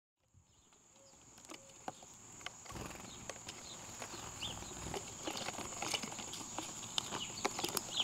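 Birds at their feed: many quick, irregular pecking taps with a few faint short chirps, over a steady high thin whine. The sound fades in over the first couple of seconds.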